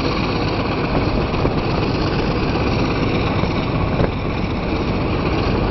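BB304-class Krupp diesel-hydraulic locomotive running under way, heard from aboard the train: a steady, loud engine and running noise.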